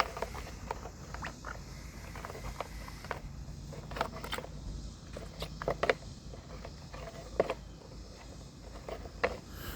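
Scattered light clicks and knocks from handling the parts of a solar watering pump at a rain barrel, over a low steady rumble.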